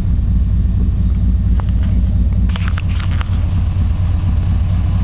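Steady low rumble of a day bed being towed behind a truck, with a few short clicks and rattles around the middle.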